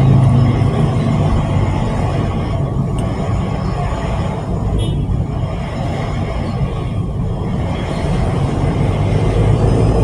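Steady road traffic noise, a continuous rumble of vehicle engines and tyres.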